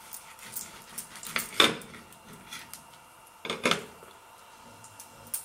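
Chef's knife cutting through a bread bun and clinking against the plate beneath, with a few sharp clinks, the loudest about a second and a half in and more around three and a half seconds.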